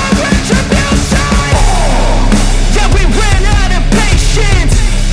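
Loud rock music: fast drum hits, then about a second and a half in a heavy, sustained bass comes in under wavering melodic lines.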